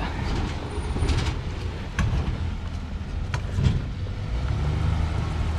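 Pickup truck engine running as the truck drives off down the street, over a steady low street rumble.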